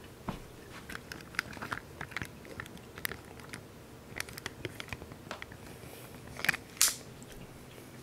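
Camera handling noise: a string of sharp clicks, taps and crackles from fingers on the camera as it is picked up and moved, loudest in two bursts near the end, over a faint steady background hum.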